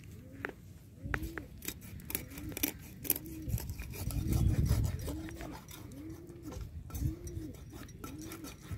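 Sharp cracks and crunches of a floor-mounted curved cutting blade (aruvamanai) slicing through a pomfret's skin and backbone, at irregular intervals. Behind it, a low call rises and falls about once every two-thirds of a second.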